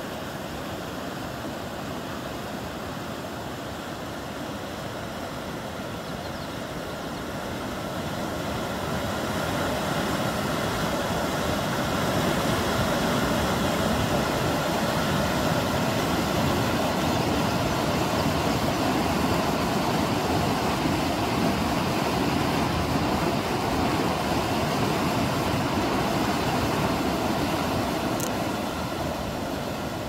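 Muddy river water rushing over granite rock slabs in rapids: a steady roar of water that grows louder for a long stretch in the middle and eases off near the end.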